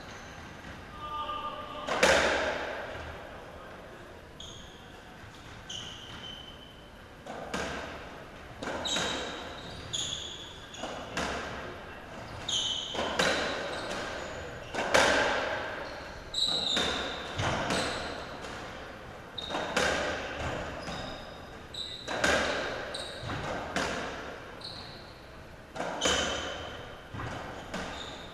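Racketball rally on a squash court: the ball is struck by rackets and smacks off the walls and floor about every one to two seconds, each hit ringing in the enclosed court. Short, high shoe squeaks come from the players moving on the court floor between shots.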